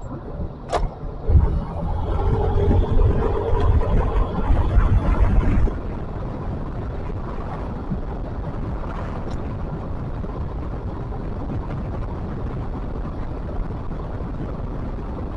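A vehicle's rumble, loudest for the first few seconds and then running on steadily.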